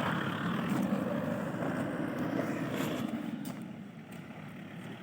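Isuzu D-Max 4x4 pickup driving off-road: a steady rumble of engine and tyres that grows fainter over the last couple of seconds.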